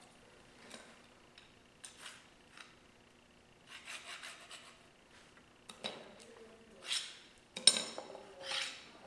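Small metal machine parts being handled: a string of short rubs, scrapes and light clinks as aluminum pieces and linear bearings are slid and set down. The loudest scrapes come in the last couple of seconds.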